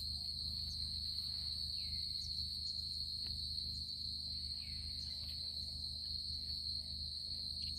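Steady chorus of night insects such as crickets, one continuous high pitch with a fainter one above it, over a low steady hum.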